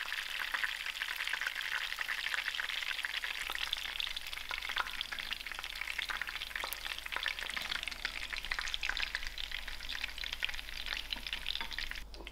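Breaded chicken schnitzel frying in hot shallow oil in a pan: a steady sizzle thick with fine crackles and spits. It drops away sharply near the end.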